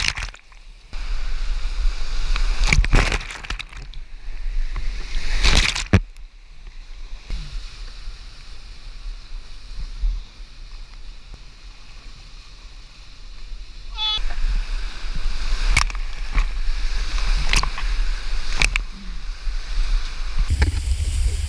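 Whitewater rushing and splashing around a kayak running a steep rapid, with sharp slaps of water against the boat and paddle. It cuts out briefly near the start as the camera goes into the foam, is quieter for several seconds in the middle, and swells again about two-thirds of the way through.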